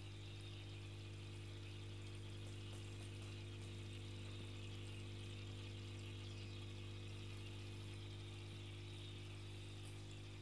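Aquarium filter pump running with a low steady hum and a soft hiss of moving water.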